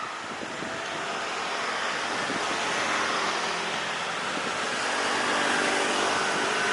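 Jet aircraft engine noise, a broad rush with faint steady tones in it, swelling and peaking near the end as the aircraft passes.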